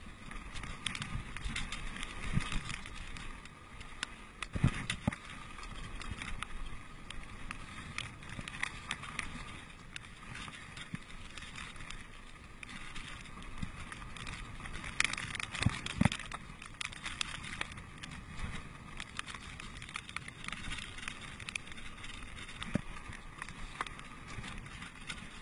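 Mountain bike riding fast down a dirt trail: tyres rolling on dirt, with frequent rattles and sharp knocks from the bike jolting over bumps.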